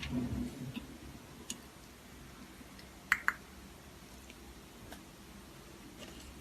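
A low thump at the start, then scattered light clicks and ticks, with two sharp clicks in quick succession about three seconds in.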